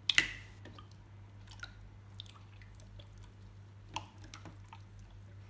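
Clear green slime being stretched, pulled apart and folded by hand on a wooden tabletop: a sharp wet snap about a quarter second in, then scattered small squelches and crackling pops as the slime is squeezed and pressed.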